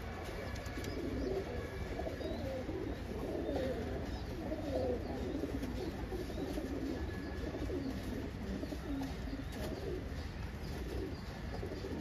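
Pigeons cooing continuously, several birds overlapping in a low, wavering murmur.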